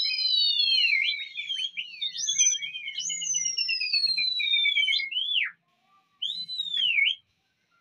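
Piercing whistling directed at a flock of flying pigeons: several overlapping whistles that slide up and down, with a warbling trill in the middle. After a short pause near the end comes one more falling whistle.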